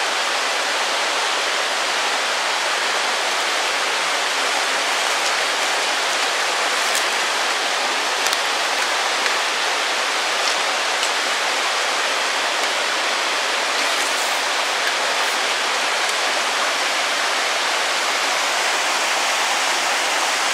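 Steady rushing of a mountain trout stream, water running over rocks.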